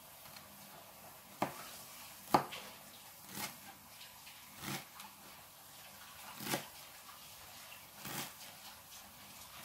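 Kitchen knife chopping dill and parsley on a wooden cutting board: about six separate knocks of the blade against the board at an uneven pace, the second one the loudest.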